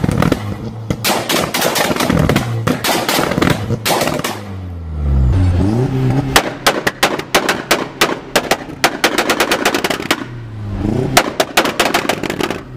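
Volkswagen Golf engines being revved with their exhausts popping and banging in rapid strings of sharp cracks. Two revs rise and fall, about five seconds in and again near the end, and each is followed by a fast volley of pops as the revs drop.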